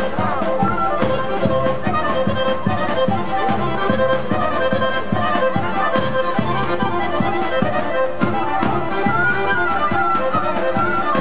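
Macedonian folk dance music, led by accordion playing a melody over a steady, quick beat.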